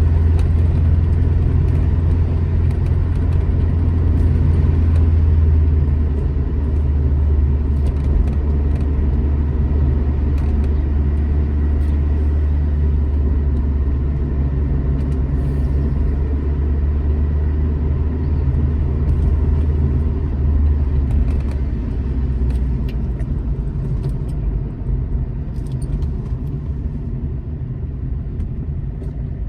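Alfa Romeo GT Junior's twin-cam four-cylinder engine droning steadily while driving, with road noise; the engine note drops a little about three-quarters of the way through and the sound gets somewhat quieter near the end.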